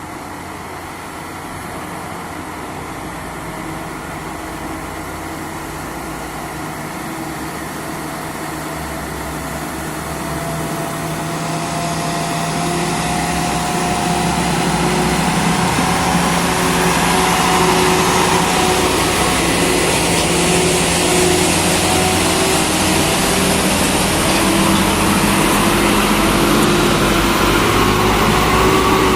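Heavy diesel truck engine labouring up a hill, growing louder as it approaches over the first half, then holding a steady, slowly rising note.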